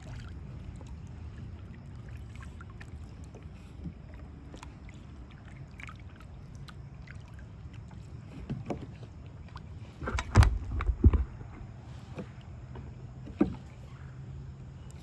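A kayak being paddled: a steady low rumble with scattered small splashes and ticks. About ten seconds in there is a cluster of loud knocks against the kayak, and a single knock comes a few seconds later.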